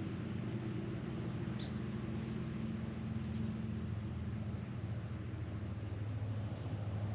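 Insects, likely crickets, trilling in a rapid, even high-pitched pulse over a steady low hum.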